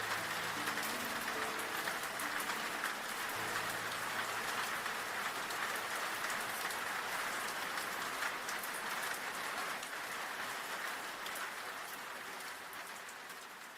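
Steady heavy rain falling on hard surfaces, a dense even hiss, with a few soft held music notes underneath that end a few seconds in. The rain fades down near the end.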